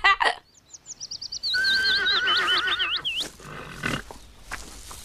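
Horse whinnying: one long, high, wavering whinny starting about half a second in and fading out after about three seconds.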